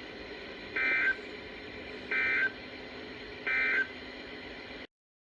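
Emergency Alert System end-of-message data bursts on a weather radio broadcast: three short, identical two-tone digital chirps about 1.4 s apart, over a steady hiss, signalling the end of the warning. The audio cuts off suddenly near the end.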